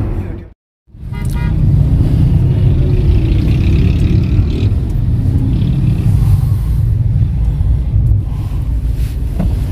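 Engine and road rumble inside a moving car's cabin in traffic, steady and low. It cuts out completely for a moment about half a second in, then comes back.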